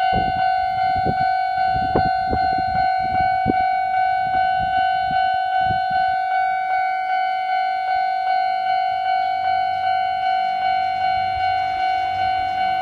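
Japanese railway level-crossing warning bell ringing its repeated electronic 'kan-kan' strikes, about three every two seconds, each fading before the next. The low rumble of an approaching train builds under it near the end.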